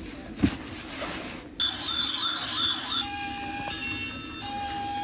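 Plastic packaging rustling with a thump as a toy is unpacked, then about a second and a half in a battery-powered toy police car's electronic siren starts: a warbling wail that turns into a repeating pattern of steady electronic beeps.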